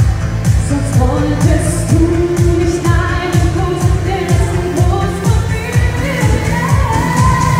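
A singer singing live into a microphone over a pop backing track with a steady kick-drum beat, about two beats a second, played loud through a PA.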